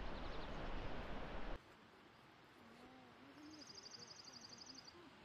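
Wind buffeting the microphone, with faint bird chirps over it; it cuts off suddenly about a second and a half in. After that, in the quiet, a small songbird sings a rapid high trill lasting about a second and a half.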